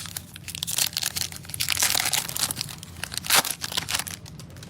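A trading card pack's plastic wrapper being torn open, crinkling and crackling for about four seconds, with a sharp tearing crack a little past three seconds in.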